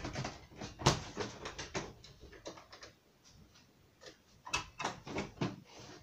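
Wooden interior door with a lever handle being opened and shut: a quick run of knocks and clicks, the loudest about a second in, then another cluster after a quieter stretch in the middle.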